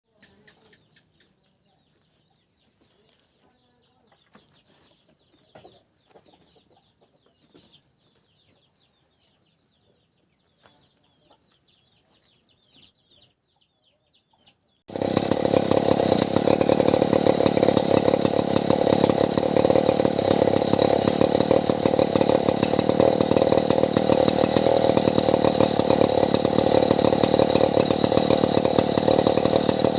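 Faint high-pitched chirping for the first half, then about halfway through a chainsaw cuts in suddenly and loud and keeps running steadily to the end.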